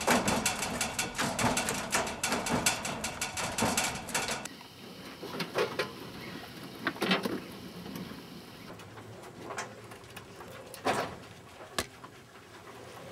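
Farmed mink in wire-mesh cages: rapid clattering and scratching on the wire for the first few seconds, then quieter, with a few short sharp squeaks or knocks.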